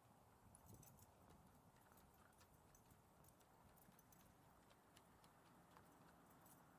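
Faint, irregular clicking footsteps on wooden boardwalk planks.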